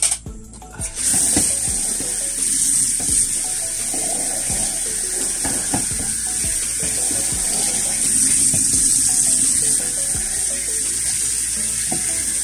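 Tap water running steadily into a sink while dishes are washed by hand, with frequent short clinks and knocks of plates and utensils. A faint melody of background music sits underneath.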